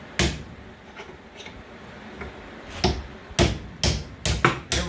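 Hand hammer striking a steel punch to drive old bushings out of a Club Car Precedent golf cart front-end part clamped in a bench vise. One hard blow at the start, a couple of light taps, then five quick hard blows about half a second apart near the end, as the bushing is knocked out.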